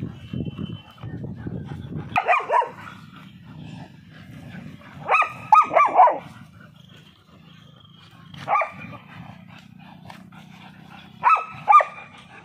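Dogs (a German shepherd, a black Labrador and a Rottweiler puppy) play-fighting in a tug-of-war: low growling runs underneath, broken by short sharp barks in four bouts. One comes about two seconds in, a run of four about halfway, one single bark, and a pair near the end.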